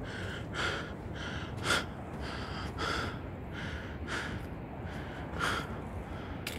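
A hiker's heavy, rapid breathing from exertion on an uphill trail, short breaths coming about every half second to second over a steady low rumble.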